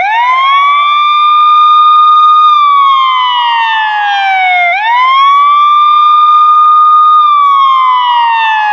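Police siren sounding a slow wail, twice. Each time the pitch sweeps quickly up, holds high for about two seconds, then slides slowly back down.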